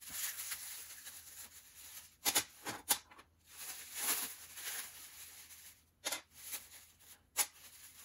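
Clear plastic packaging crinkling and rustling as it is handled and opened, with a few sharp crackles.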